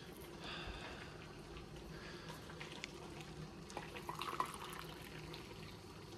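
Hot water being poured and trickling into a container, faint, with a few light clicks of handling and a short louder clatter about four seconds in.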